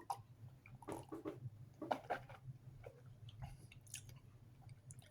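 Faint mouth sounds of a man eating and drinking: scattered short wet clicks and smacks, a few louder ones about one and two seconds in, over a steady low hum.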